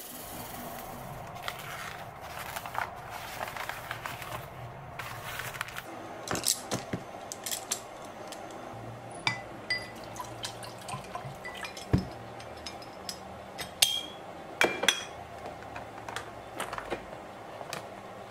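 Water splashing and dripping, with many small clinks, taps and brief high pings of glass and brushes being handled while painting gear is cleaned.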